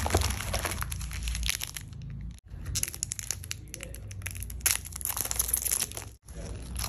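Foil-lined plastic snack wrappers crinkling as hands sort through a pile of Chocolatos wafer-roll packets. Then one packet is torn open and its wrapper pulled apart, giving a dense burst of crackling about halfway through.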